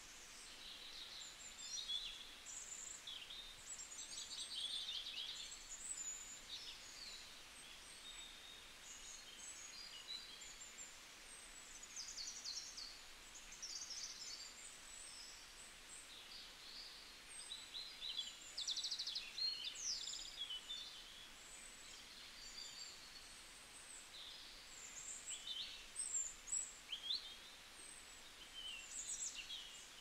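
Several woodland songbirds singing and calling at once: many short, high chirps, trills and quick runs of repeated notes that overlap, over a faint steady hiss.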